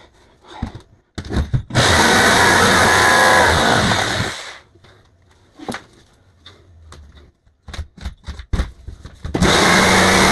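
Handheld power tool cutting the opening for a pet door in a door. It runs for about two and a half seconds from about two seconds in, stops, and starts again near the end. Small clicks and knocks come in between, as the tool is set again.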